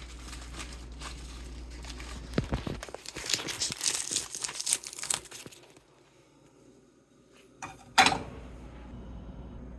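Crinkling and rustling, as of plastic or paper being handled or torn, for about three seconds in the middle, then a sharp knock near the end.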